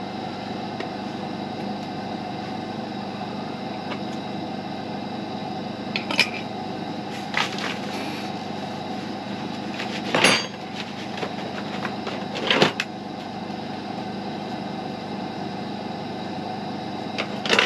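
Sauce being emptied out of a jar over a pan of stuffed shells: a handful of short knocks and clinks of jar and utensil against the pan, the loudest about ten seconds in, over a steady hum.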